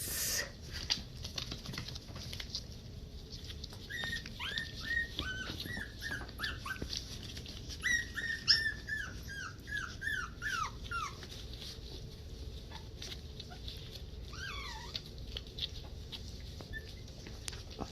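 Havanese puppies whimpering: two runs of short high squeaks, each falling in pitch, starting about four and eight seconds in, and one more brief whine a few seconds later, with faint scuffling clicks between.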